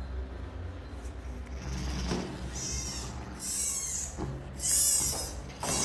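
High-pitched animal cries with wavering pitch, about four short calls starting a little over two seconds in and growing louder, over a steady low hum.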